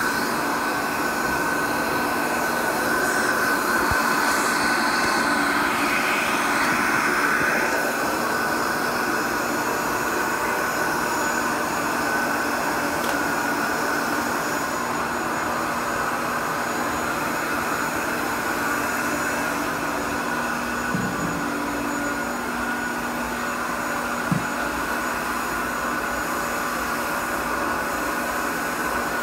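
1950s Airway Sanitizor Model 66 canister vacuum cleaner running steadily, its motor giving a fairly quiet, even tone as the floor brush sucks across a floor. A couple of small clicks come about two thirds of the way through.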